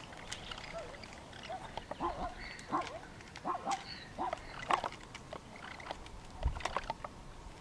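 A string of short, bark-like animal calls, about two a second through the middle, with scattered sharp clicks and a low thump near the end.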